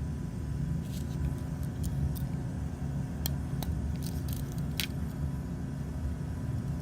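Scattered light clicks and taps from handling Swiss Army pocket knives, over a steady low background rumble.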